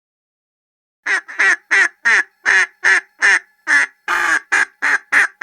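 Domestic duck quacking in a quick series, about a dozen loud quacks at two or three a second, starting about a second in.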